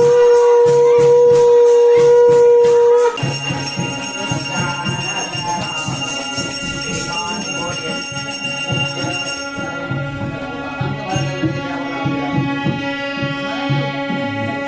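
Devotional music with jingling bells and a steady beat. A loud held note sounds at the start and cuts off about three seconds in, then the music carries on with sustained instrument notes.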